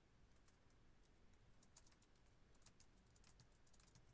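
Faint clicking of computer keyboard keys: scattered keystrokes, with a quick run of them about three seconds in, as a line of code is copied and pasted over and over.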